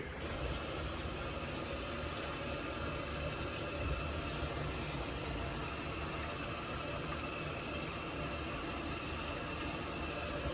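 Water running steadily from a newly installed single-handle pull-down kitchen faucet into the sink.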